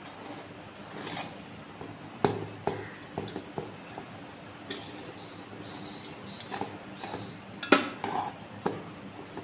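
A metal spoon scooping cooked rice in a rice cooker's non-stick inner pot, with irregular scrapes and clicks of spoon against pot. One knock about three-quarters of the way through is the loudest.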